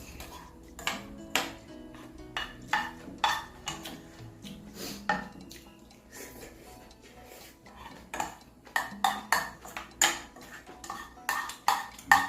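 Spoon and chopsticks clinking against a bowl of ramen while eating: irregular sharp clinks, most frequent in the last few seconds. Background music runs underneath.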